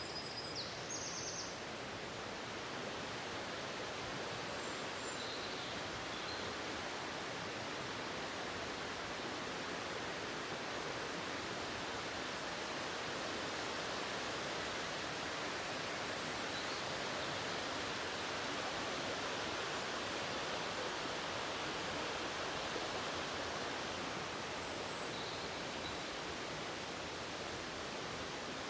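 Steady rushing of a waterfall. A few faint, high bird chirps come at the start, with fainter ones now and then later.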